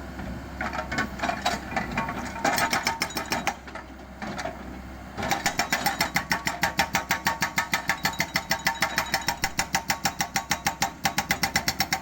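Hydraulic breaker on a mini excavator hammering a concrete bridge slab, over the steady running of the excavator's engine. It strikes in short uneven spells, stops for a moment, then about five seconds in settles into a fast, even hammering of about five strikes a second.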